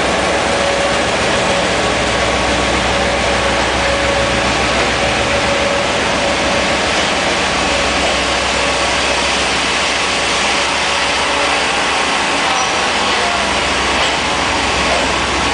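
General Motors G22 diesel-electric locomotive running steadily as it pulls a passenger train out, its engine drone fading over the first several seconds. The passenger coaches then roll past with a steady noise of wheels on the rails.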